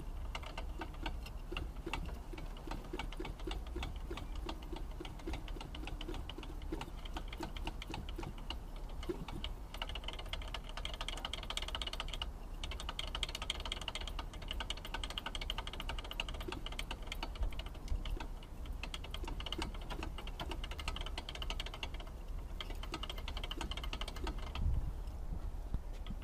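EME-60 model-aircraft petrol engine, not running, giving a dense, rapid clicking rattle from inside as it is worked. The noise comes from its repair crankshaft, whose connecting rod has play.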